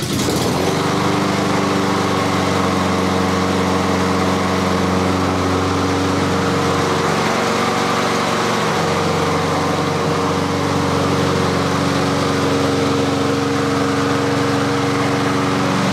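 Honda GCV160 single-cylinder engine on a push mower catching and running steadily, its engine speed set a little low.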